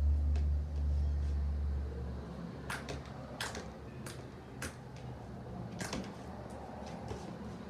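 Homemade slime being squeezed and stretched by hand, giving a series of sharp little clicking pops, after a low rumble of handling noise in the first couple of seconds.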